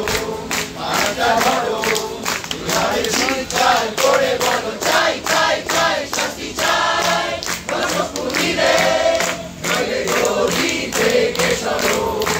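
A crowd singing together in chorus, over a steady beat of sharp strikes about three a second.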